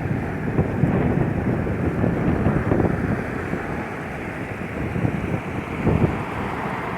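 Sea waves washing onto the shore, with wind gusting across the microphone in low rumbling buffets.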